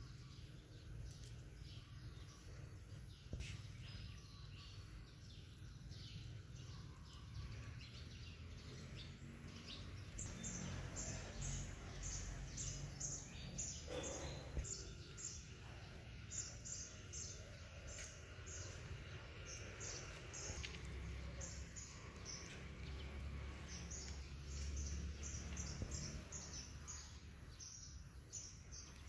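Faint outdoor ambience: a steady low rumble, with small birds chirping in quick repeated notes from about ten seconds in.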